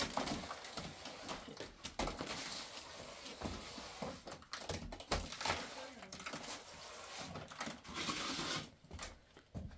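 Gloved hand smearing and scraping wet mud plaster onto a mud wall around a window frame: a run of gritty scrapes and small crackling ticks.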